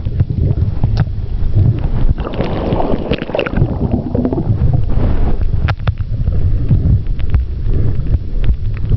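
Muffled underwater sound picked up by a camera just below the sea surface: a steady low rumble of moving water with scattered sharp clicks, and a brief rush of water noise about three seconds in.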